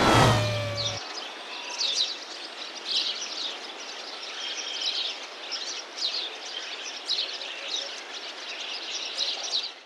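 A car's engine passing fast, its pitch falling, cut off abruptly about a second in. After it, small birds chirp in short high calls, about one or two a second, over a steady outdoor hiss.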